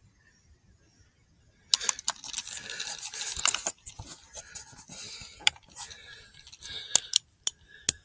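Metallic rattling and clicking of a hunting rifle being handled and loaded in a hurry, the rifle having been found unloaded. A dense run of rattles and clicks starts about two seconds in, then several sharp single clicks follow near the end.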